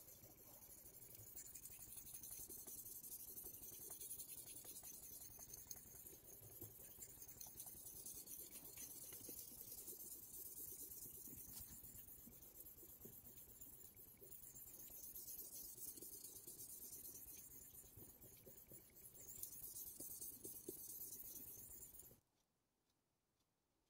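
Faint wet scraping of a deba knife blade stroked back and forth on a Shapton Glass 1000-grit whetstone, under a steady hiss. It cuts to silence near the end.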